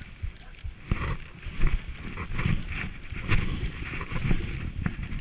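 Wooden dog sled running over snow behind a husky team: runners hissing on the snow, with irregular knocks and rattles as the sled bumps along and wind buffeting the microphone.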